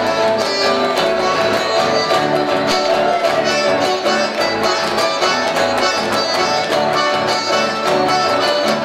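Live chamamé played by two accordions over strummed acoustic guitars and an electric guitar. The accordions hold the sustained melody over a steady strummed beat, with no singing.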